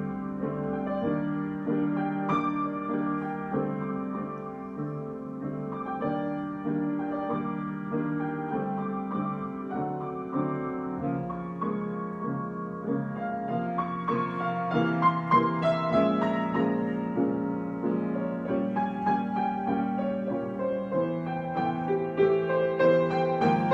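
Solo piano improvising slow, held chords with a melody above, the playing growing busier and louder over the last several seconds.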